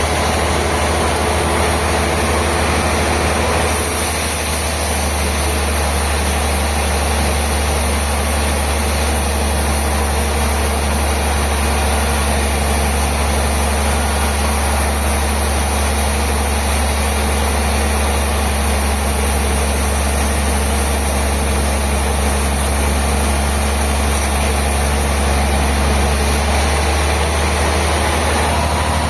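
Heavy sawmill machinery running steadily: a loud, low engine-like drone under a constant mechanical hiss, with a higher hiss joining about four seconds in.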